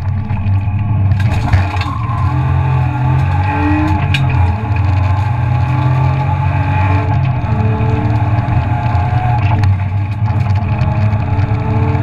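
In-cabin sound of a BMW E36 323ti rally car's 2.5-litre straight-six running hard at stage speed, the revs rising and falling.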